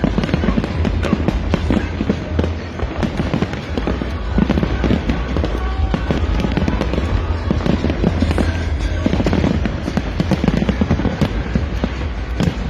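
Fireworks going off in a continuous dense crackle of sharp pops and bangs, with music under it.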